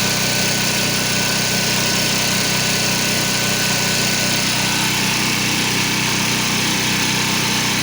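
Pressure washer's gas engine running steadily under load, with a steady hiss of high-pressure spray.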